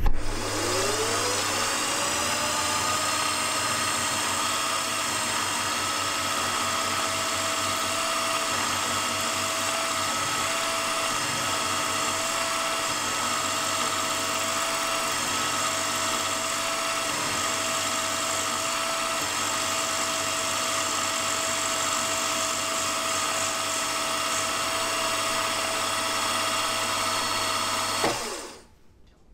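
Milling machine spindle spinning up with a rising whine, then running steadily while a 9 mm two-flute end mill cuts counterbores into aluminium plate. Near the end the spindle is switched off and winds down with a falling whine.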